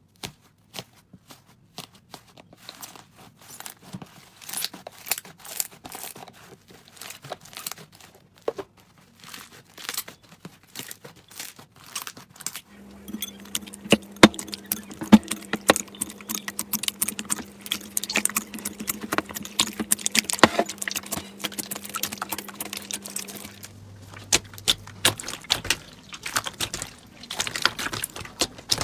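Slime being squeezed, poked and stretched by hand, making dense, irregular crackling and popping clicks. The sound changes character about 13 and 24 seconds in, as one clip gives way to another.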